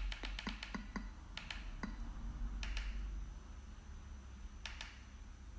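Remote-control buttons being pressed: a quick run of about eight light clicks in the first second, then a few more singly or in pairs, over a low steady hum.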